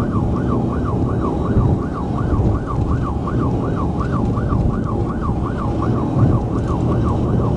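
Police car siren in yelp mode, its pitch sweeping quickly up and down about three times a second, over heavy engine and road noise from the car in pursuit.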